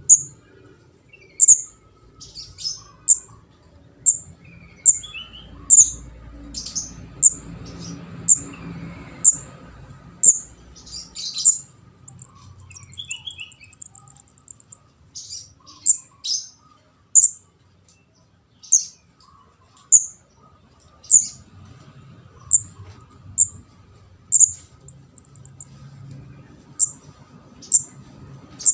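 Young kemade jawa (ndas abang) calling: short, sharp, very high chips repeated roughly once a second, with a brief rapid trill about halfway through. The call is used as a lure.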